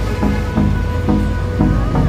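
Background music: a pop song with a steady, even beat.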